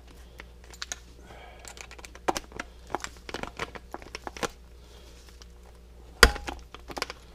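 Small metal hand tools and bike parts clicking and clattering during a seat clamp bolt repair, with one loud, sharp metal clank about six seconds in that rings briefly.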